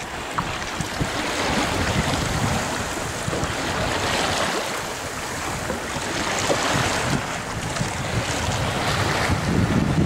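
Wind buffeting the microphone over choppy water, with small waves lapping and splashing around a kayak.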